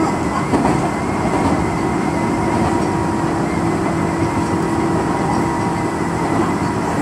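Tobu Railway electric train running along the track, heard from inside the front car: a steady running noise with a steady hum over it.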